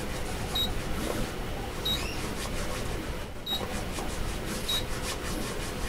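Anycubic Photon touchscreen beeping at each button press: five short, high, identical beeps a second or so apart, as the Z axis is stepped down 0.1 mm at a time to bring the build plate onto the paper during levelling.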